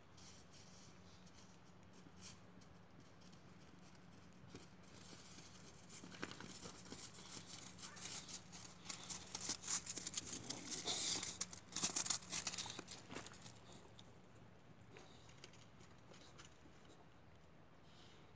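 Crunching and scuffling on crusty snow, a dense run of short crackles from about six seconds in that is loudest around ten to twelve seconds and dies away by about thirteen seconds.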